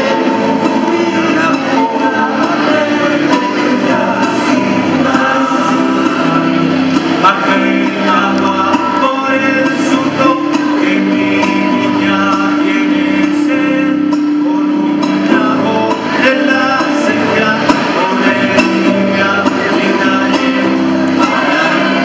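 Mixed choir of men's and women's voices singing a Spanish-language song together in parts.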